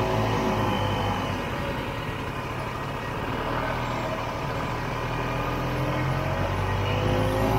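1967 Ski-Doo Olympique's 250cc single-cylinder two-stroke engine running under way. It eases off in the middle and picks up revs again near the end.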